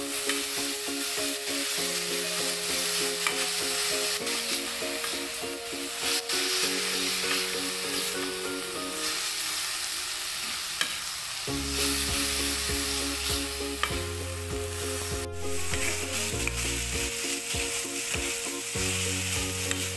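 Tofu, green chillies and shallots sizzling as they stir-fry in a metal pan, stirred with a metal ladle. Background music plays over it, a bass line coming in a little past halfway.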